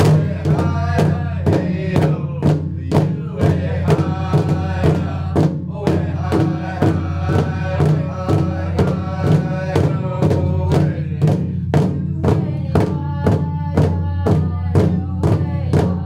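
A drum beaten at a steady pulse of about three strokes a second, with a voice chanting over it and a steady low hum underneath.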